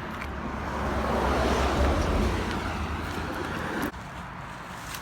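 Road traffic noise: a car going by with a low rumble and tyre hiss, swelling about two seconds in. The sound drops off abruptly just before four seconds.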